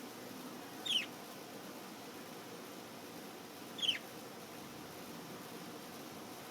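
Lovebird giving two short, high chirps about three seconds apart, each falling in pitch.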